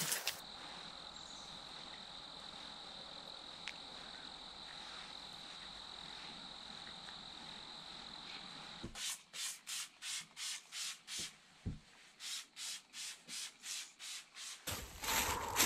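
Fingertips rubbing camouflage face paint onto skin: a run of short rubbing strokes, about two a second, after a faint steady high whine. Louder rustling comes in near the end.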